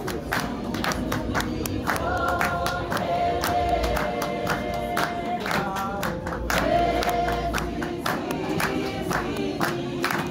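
A small mixed group singing a worship song together, with steady hand-clapping in time, about three claps a second.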